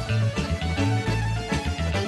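A live band playing upbeat music, with electric guitar and accordion over a steady, driving bass line.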